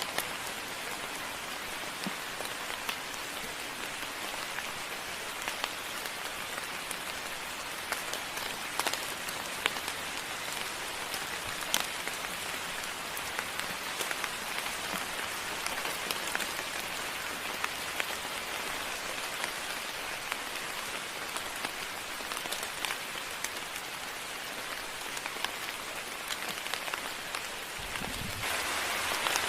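Steady moderate rain, an even hiss with scattered louder drops ticking sharply. Near the end the rain gets a little louder, with a brief low rumble.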